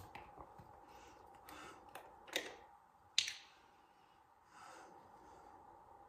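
Faint handling noises from skincare products and hands: a few light clicks and swishes, the sharpest click about three seconds in, then a soft rush like a breath near the end.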